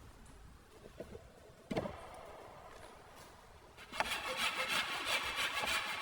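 A single knock of wood, then, about four seconds in, a hand saw starts cutting wood with rough back-and-forth strokes.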